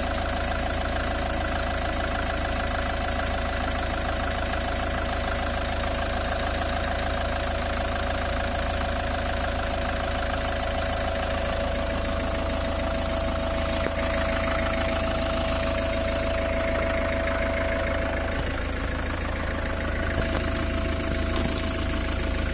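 Toyota HiAce engine idling steadily, with a steady tone running over the engine sound.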